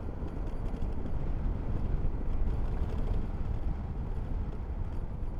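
Wind rushing and buffeting over a microphone with only a foam cover and no furry windshield, on a moving motorcycle: a dense, gusting low rumble that mostly hides the engine and road noise.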